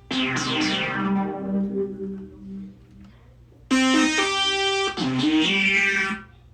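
Korg RK-100S keytar synthesizer preset played in short phrases, compared between the two keytar models. The first phrase has a bright tone that sweeps downward and fades out about three seconds in. A second phrase starts with buzzy sustained notes that step in pitch, then sweeps downward again near the end.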